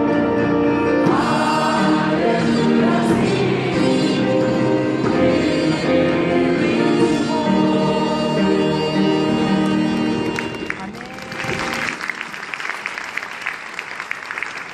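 A small choir singing a worship song with instrumental accompaniment; the song ends about eleven seconds in and the audience breaks into applause.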